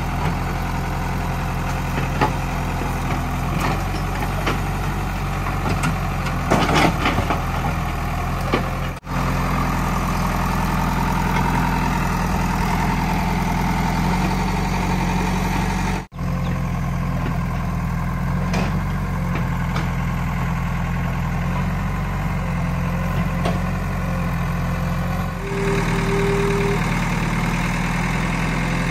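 JCB 3DX backhoe loader's Kirloskar diesel engine running steadily while the backhoe digs. There are a few short knocks a few seconds in, and the sound drops out briefly twice. Near the end the engine's note shifts.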